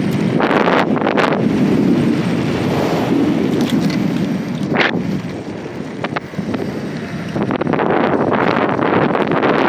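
Wind buffeting the microphone during a fast ride on an electric bike, a loud gusty rush. It eases for a couple of seconds after the middle, with one brief sharp knock about five seconds in.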